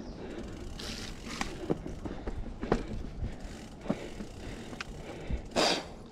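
Mountain bike rolling along a dirt trail: tyres on dirt with a steady low rumble, and the bike rattling with sharp clicks and knocks over bumps. A louder short rush of noise comes near the end.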